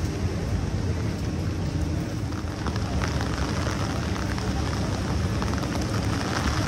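Steady rain hiss on a wet city street over a continuous low rumble.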